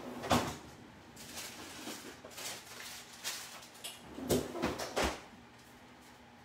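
Off-camera kitchen handling: a door or drawer being opened and shut and things being moved, a few short knocks and clatters with a cluster of knocks about four to five seconds in.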